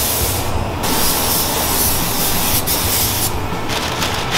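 Fuji gravity-feed spray gun hissing as it sprays paint, in trigger pulls that stop briefly twice. A steady low hum runs underneath.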